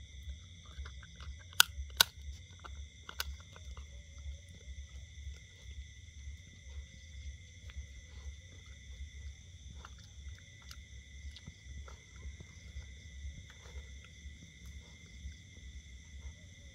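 Dog gnawing a bone: scattered small crunching clicks, with two sharp cracks close together about one and a half to two seconds in, over a steady high-pitched whine and a low hum.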